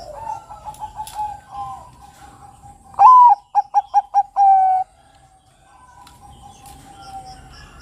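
Bangkok-type zebra dove (perkutut) singing: softer coos in the first two seconds, then about three seconds in a loud opening note, a quick run of five short coos and one longer held closing note.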